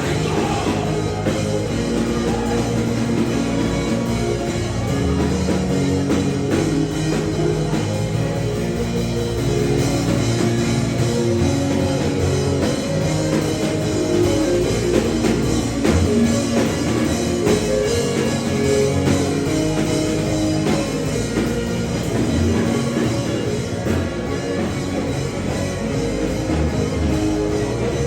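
Instrumental band music with drums and sustained chords, playing continuously at an even level.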